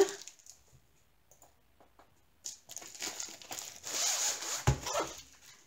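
Packaging of a rolled diamond painting kit crinkling and rustling as it is handled, starting about halfway in, with a soft thump near the end.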